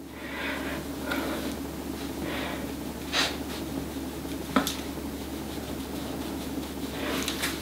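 Soft swishes of a makeup brush being swept over skin, with light handling of a compact powder palette and a couple of small taps about three and four and a half seconds in, over a steady room hum.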